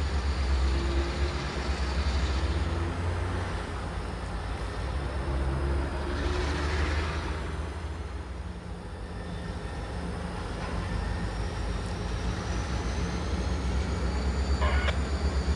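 Low, steady rumble of a freight train's EMD diesel locomotives, a GP40-2 and a GP38-2, as they approach.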